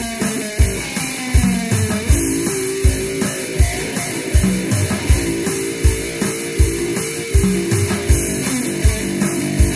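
Electric one-string cigar box guitar (diddley bow) played slide-style: falling slide glides in the first couple of seconds, then held notes, over a steady drum beat.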